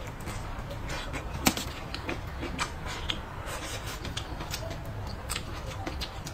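Close-miked eating sounds: chewing and wet mouth clicks in an irregular patter, with one louder sharp click about one and a half seconds in, over a low steady hum.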